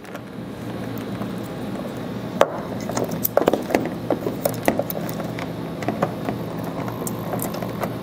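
Plastic connectors and wires of a trailer-wiring harness being handled and pushed down through a vehicle's taillight opening: scattered light clicks and taps of plastic against plastic, starting a couple of seconds in, over a steady low background hum.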